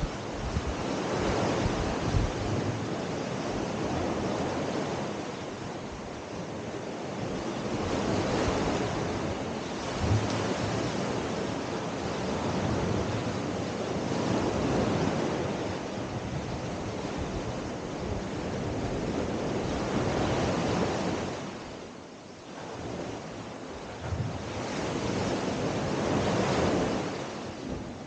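Small sea waves breaking and washing up a sandy beach, the surf swelling and ebbing about every six seconds, with some wind rumbling on the microphone.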